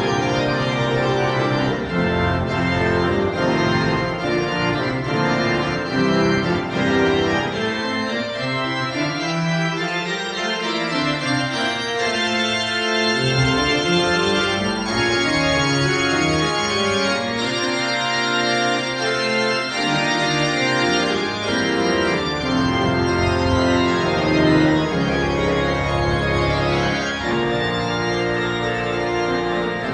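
Pipe organ playing a toccata: loud, dense chords and running figures. Deep bass notes sound under it, then drop out for a few seconds about a third of the way in and again past the middle, before returning.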